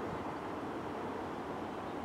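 Steady distant rumble of an approaching diesel commuter train under an even outdoor hiss, with a faint low engine hum and no horn.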